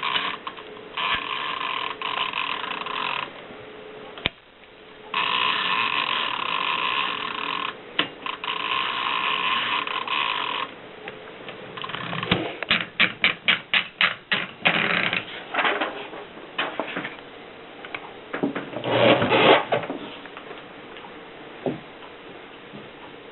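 Mercedes typewriter being worked, with two stretches of steady rasping mechanical noise lasting a few seconds each. Around the middle comes a quick run of about a dozen sharp key strikes at roughly four a second, then a short, louder rattle.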